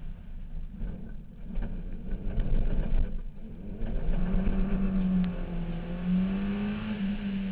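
Slalom car's engine running hard, heard from a camera on the car. A rough rumble fills the first few seconds, then from about four seconds in the engine holds a steady note that rises slightly near the end.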